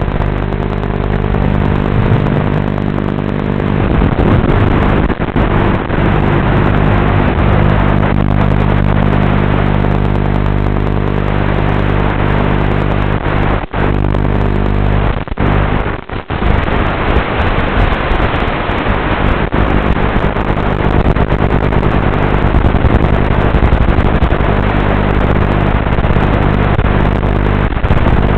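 Racing quadcopter's motors and propellers buzzing steadily, heard over the analog FPV video link. There are a few brief dropouts around the middle where the signal breaks up.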